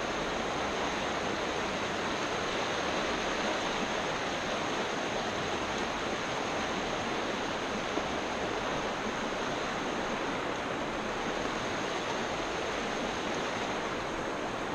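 Shallow river current rushing steadily over rocks and riffles.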